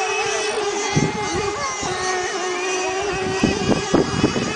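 Engines of radio-controlled racing model power boats running flat out on the water, a steady high engine whine. Low gusts of wind on the microphone come in from about a second in.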